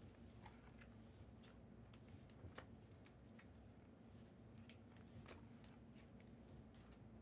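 Near silence with a few faint clicks and rustles of trading cards and packs being handled, the clearest about two and a half seconds in.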